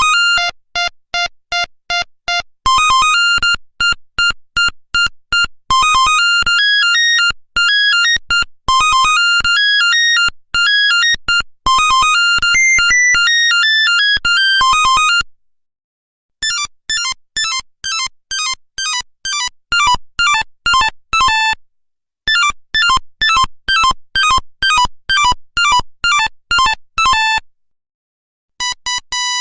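Nokia 1100 monophonic ringtones: melodies of quick single beeping notes, one note at a time. One tune plays for about fifteen seconds, then after a brief pause a tune of rapid falling runs plays twice, and another tune begins near the end.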